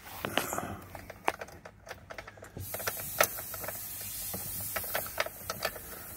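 Starter of a 2007 GMC Yukon's 5.3-litre V8 being tried: scattered clicks at first, then from about halfway in a steady mechanical whir with repeated clicking as the starter struggles to turn the engine over without it firing.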